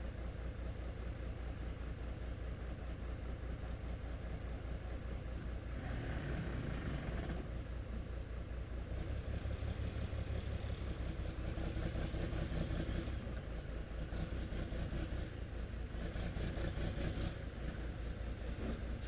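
Nissan Diesel/UD truck's diesel engine running with a steady, fast low pulsing, growing louder for a few seconds at a time several times.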